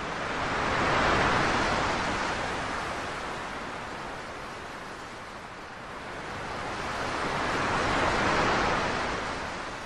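Ocean surf: waves breaking and washing up the beach, swelling loudest about a second in and again near the end.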